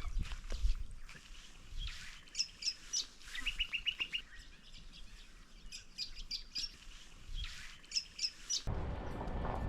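Wild birds calling: clusters of short, high chirps, with a quick run of about six even notes a few seconds in. Music comes in near the end.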